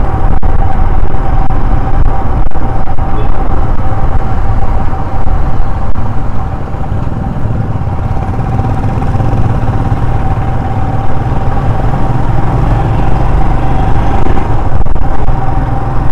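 Royal Enfield Himalayan single-cylinder motorcycle riding along, engine running with a steady whine over a heavy low rumble of wind on the rider's microphone. It eases off a little about six seconds in, then builds again.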